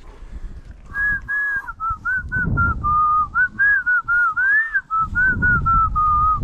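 A person whistling a slow melody of held notes with small glides between them, over low rustling and handling noise.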